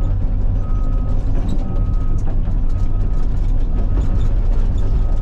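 CAT 323 excavator's diesel engine running with a steady low rumble while its travel alarm beeps about once a second, each beep about half a second long, as the machine tracks.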